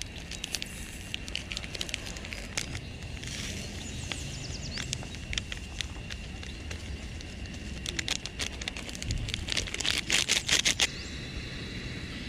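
Plastic sachet crinkling as it is torn open and its contents shaken out into a cup, with a quick cluster of sharp crackles near the end, over a faint steady high tone.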